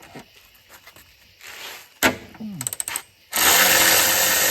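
DeWalt 12 V cordless ratchet running steadily under power from about three seconds in, spinning a strut bolt, after a few light clicks and knocks of the tool and socket being handled.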